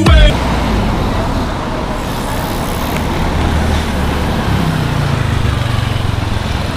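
Street traffic noise, with a motor scooter's engine running as it passes from about four and a half seconds in.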